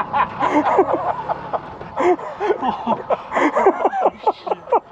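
Indistinct men's voices talking, in quick short phrases.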